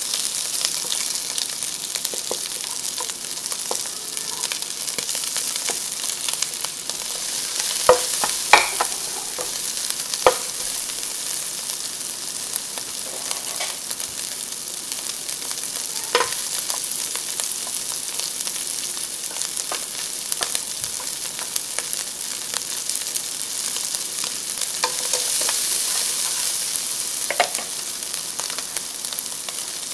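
Diced Chinese sausage sizzling in oil in a nonstick wok, being fried until crunchy and a little burnt. A spatula scrapes and taps against the pan a few times, and the sizzling grows louder near the end.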